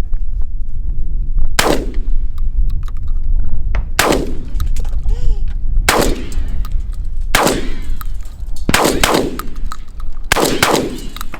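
Gunshots on an outdoor range, about eight sharp reports spaced a second or two apart, a couple of them in quick pairs, each with a ringing tail. A steady low wind rumble on the microphone runs underneath.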